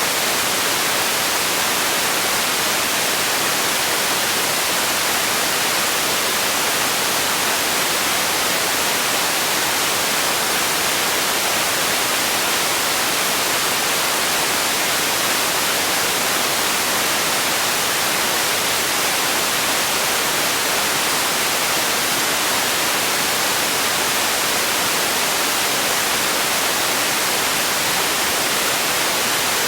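Steady generated white noise: an even, unchanging hiss, bright in the treble and thin in the bass.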